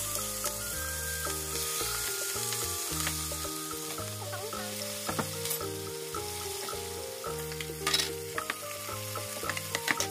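Chicken pieces sizzling as they fry in hot oil in a pan, with a few sharp knocks and scrapes of a wooden spatula, the clearest near the end. Background instrumental music plays underneath.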